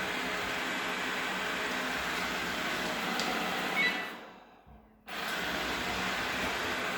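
Lenovo E1-L robot vacuum cleaner running with a steady whirring hum. About four seconds in the sound fades nearly away, then returns abruptly about a second later.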